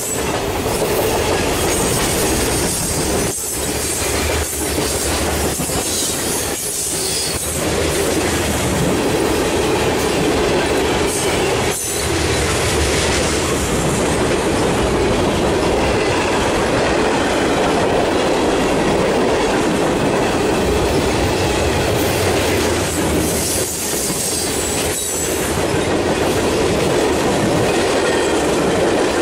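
Freight cars of a passing train (covered hoppers, tank cars and gondolas) rolling by at close range: a steady rumble of steel wheels on the rails.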